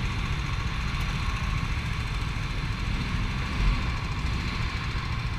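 Go-kart engines idling steadily.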